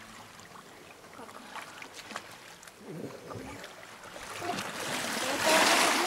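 Water splashing from a person swimming breaststroke in shallow sea water, faint at first and growing louder near the end as the swimmer comes close.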